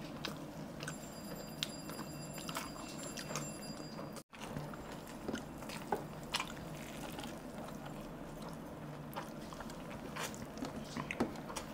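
Close-up eating sounds of people chewing mouthfuls of fried rice and chicken curry eaten by hand: faint wet chewing and smacking with scattered small clicks, over a steady low hum. The sound drops out briefly about four seconds in.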